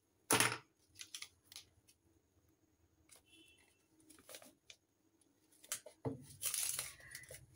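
Scissors snipping through shiny wrapping paper: one sharp cut about half a second in, then a few lighter snips. Near the end, the paper rustles as it is pressed around a tube.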